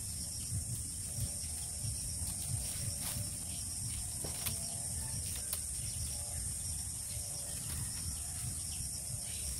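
Steady high-pitched insect chorus over a low rumble, with scattered light clicks and rustles of thin bamboo strips being threaded and bent while weaving a basket.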